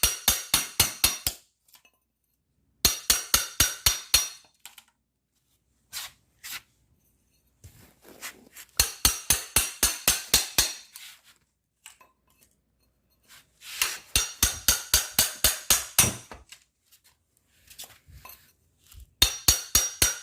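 Hammer striking a cat's paw nail puller in runs of quick metallic taps, about six a second, driving it under carpet tack strip to pry the strip and its nails off a concrete floor. There are five runs, with short pauses between them.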